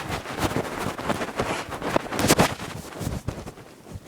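Rustling and knocking of a handheld microphone being carried while someone hurries, with a louder bump or two about two and a half seconds in; it dies down near the end.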